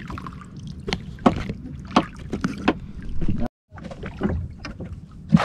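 Water lapping against a small wooden outrigger boat, with a handful of sharp splashes and knocks as a handline is hauled in by hand. The sound cuts out completely for a moment about three and a half seconds in.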